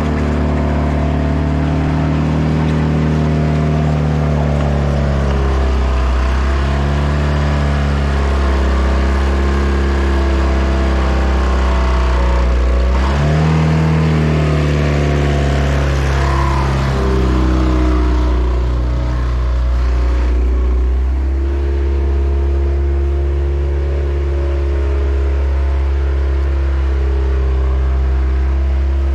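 Takeuchi TL130 tracked skid steer's repowered 2.2 L Isuzu C223 diesel running near full throttle while the machine drives, its pitch sagging and recovering as the load comes on, with a deep bog about halfway through. The machine only moves at high idle and stalls under too much load, which the owner puts down to the auxiliary hydraulics being stuck on.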